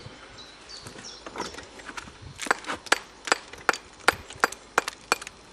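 Brick axe chipping hard lime mortar off reclaimed glazed bricks: a run of sharp, ringing knocks about three a second, starting about two seconds in, with fainter clinks of brick before it.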